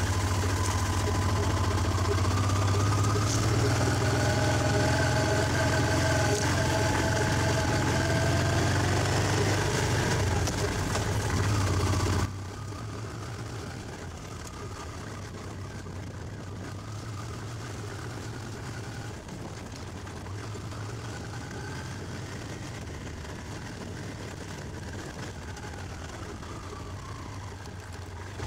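Honda Transalp XL600V's V-twin engine running as the motorcycle is ridden, heard from a camera mounted on the bike. The sound drops suddenly about twelve seconds in and stays quieter.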